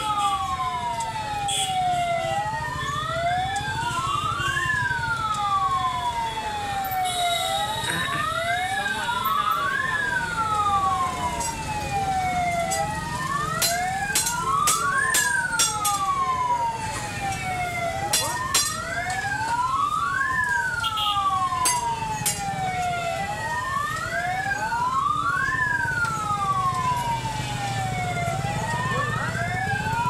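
Punjab National Bank branch's security alarm siren going off: an electronic wail that sweeps up and down in pitch again and again without pause.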